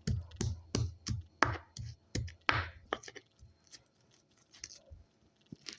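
Kencur (aromatic ginger root) being pounded with a pestle in a mortar to crush it to a powder. The strikes come evenly at about three a second, then turn fainter and sparser about three seconds in.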